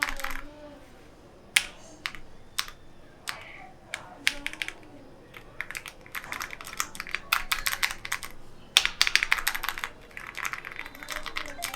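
Typing on a Ganss ES101T aluminium-cased mechanical keyboard. A few separate keystrokes come first, then from about five seconds in there are fast runs of typing.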